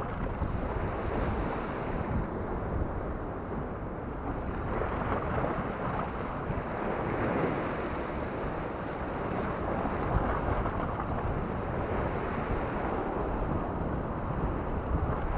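Sea waves washing against shoreline rocks, a steady rushing that swells and eases, with wind rumbling on the microphone.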